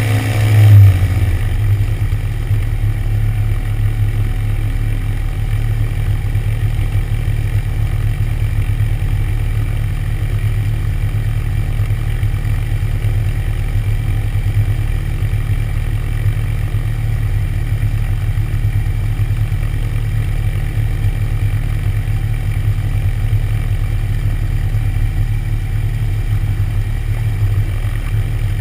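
Light aircraft's engine idling on the ground, a steady low muffled rumble picked up through a wing-mounted GoPro housing. A brief louder swell comes under a second in as higher tones drop away.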